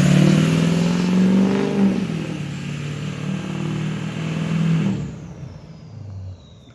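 Lifted Chevy Silverado 2500's 6.6 L Duramax turbodiesel V8 accelerating hard, the engine running loud with a turbo whistle over it. About five seconds in the engine sound falls away and the whistle winds down in pitch.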